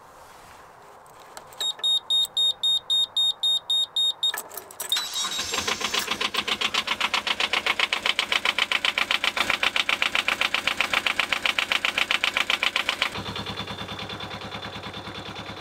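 A narrowboat's small inboard diesel engine being started: the control panel's warning buzzer beeps rapidly for a few seconds, then the engine cranks, catches and runs with a fast, even chug. About 13 seconds in, its note drops and gets quieter.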